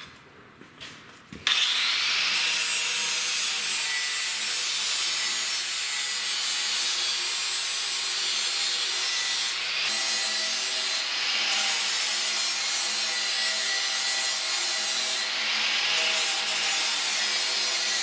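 Angle grinder grinding the end of a metal hydraulic cylinder tube, taking the outer lip of the snap ring groove down. The grinding starts abruptly about a second and a half in and runs on steadily.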